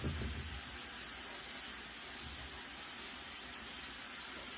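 Steady sizzling hiss of food frying in hot oil, with a soft low thump at the very start.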